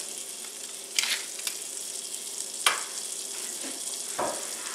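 Butter and olive oil sizzling gently in a stainless steel skillet, a steady hiss, with a few sharp clicks and a short knock near the end.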